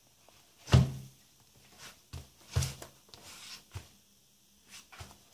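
Handling noise from a leather catcher's mitt being gripped and turned over in the hand: a few soft thumps with rustling and scuffing of leather between them, the loudest about a second in.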